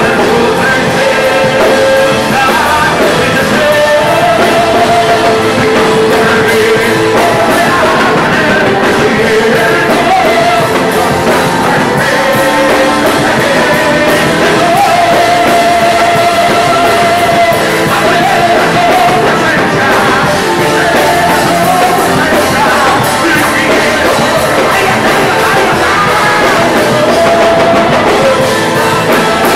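Live worship music: a man singing loudly into a handheld microphone over a full band.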